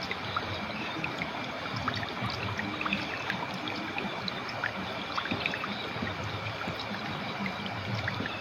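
Clear, shallow river water flowing steadily over stones, with a dense run of small bubbling and trickling plinks over the rush.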